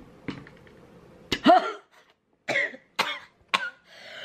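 A woman coughing hard several times in a row, the first cough about a second in the loudest, after holding in a lungful of cannabis smoke.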